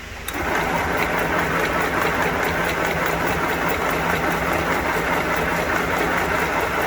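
Fanghua 505A household sewing machine starting up about a quarter second in and running steadily, stitching a test seam after its displaced hook was reset.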